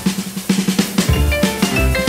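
Background music with a quick drum fill, fast drum strokes under short melody notes.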